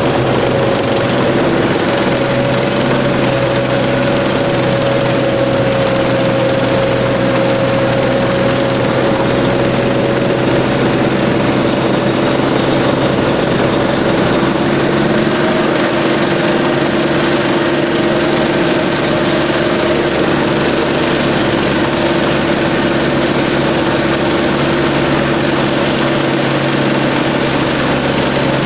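A 1963-built tank driving slowly, heard from on board: a loud, even engine drone with a couple of steady tones that hold their pitch.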